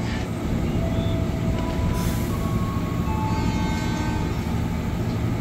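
JR 205 series electric commuter train standing at the platform, its equipment giving a steady low hum with a few faint thin tones above it. A short burst of hiss comes about two seconds in.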